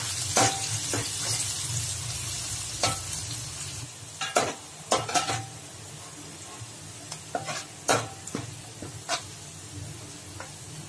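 Sliced onions frying in hot oil in a metal pot, sizzling, while a slotted metal spoon stirs them and scrapes against the pot several times. The sizzle is strong at first and grows quieter about four seconds in, as the onions turn brown.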